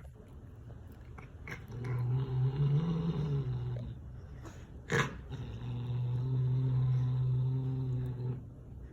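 Domestic cat growling over its food to guard it from another cat: two long, low growls, the first rising and falling in pitch. A sharp click comes between them about five seconds in.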